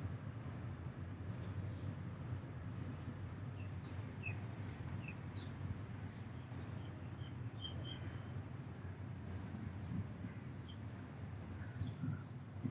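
Small birds chirping: many short, scattered high chirps over a steady low background rumble.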